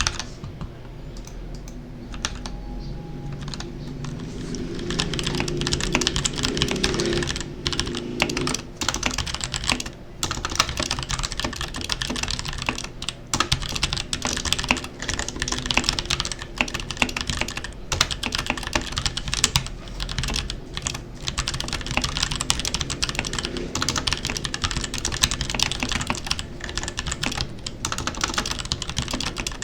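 Typing on a Royal Kludge RK61 mechanical keyboard with brown (tactile) switches, after about a year of use. Light keystrokes at first, then fast continuous typing from about four seconds in, with brief pauses.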